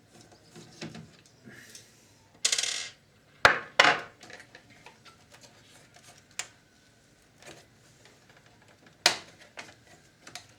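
Scattered sharp clicks and clinks of small metal parts and tools being handled while working inside an opened video recorder. There is a short rattling scrape a couple of seconds in, and the loudest clicks come at about three and a half seconds, about four seconds and about nine seconds.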